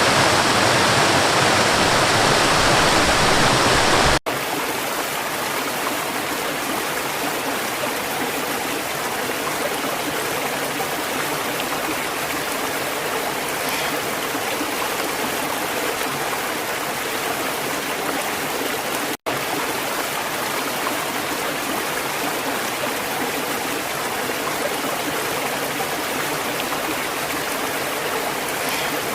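River water rushing steadily. About four seconds in it cuts abruptly to a quieter, thinner flow, and later there is a split-second gap before the same flow carries on.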